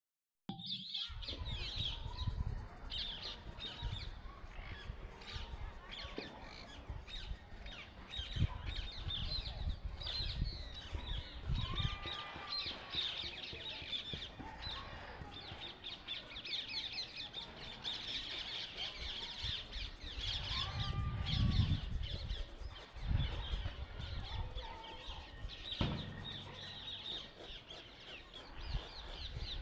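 Many small birds chirping continuously, with two longer, louder calls, one near the middle and one about two-thirds in. Underneath runs an intermittent low rumble, loudest about two-thirds of the way through.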